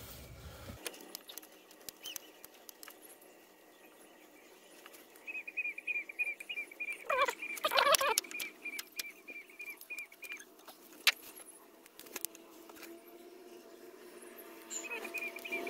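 A steel pry tool scraping a stuck old gasket off an engine flange: scattered scrapes and metal clicks, faint at first and busier from about five seconds in, with quick runs of high squeaky ticks in the middle and near the end.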